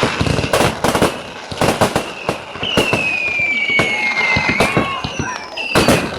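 Fireworks going off in quick succession, a steady run of bangs and crackles. In the middle a whistling firework sounds one long whistle that slowly falls in pitch for about two seconds.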